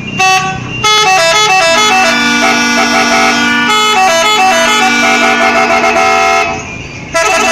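Bus telolet horn playing a melodic tune: a brief blast, then a run of quickly changing notes over a held low tone. It breaks off near the end and starts again.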